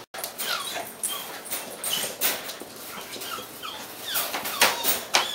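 Puppies at play, giving short, high, sliding whines and yips. Their claws click and scuffle on the hard floor.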